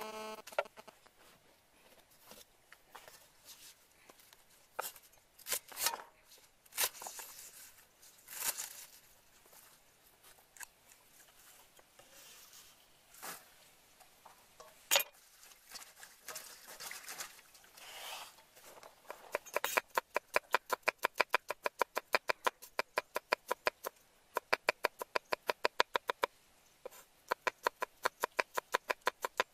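A steel cleaver chopping peeled garlic cloves on a wooden chopping board: a fast, even run of sharp knocks at about five a second, starting about two-thirds of the way in, with one brief pause near the end. Before that there are only scattered single knocks and handling noises as vegetables are moved about.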